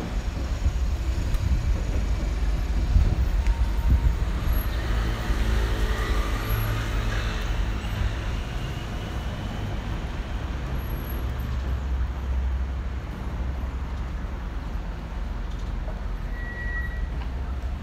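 City street traffic with a heavy engine, such as a bus or truck, running close by; its engine note swells through the middle along with a rising whine. A short high beep sounds near the end.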